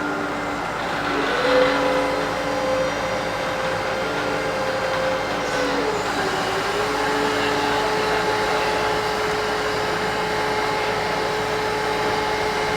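Diesel engine of a tracked piling drill rig running under load, its pitch rising about a second in, dipping briefly around the middle, then holding steady.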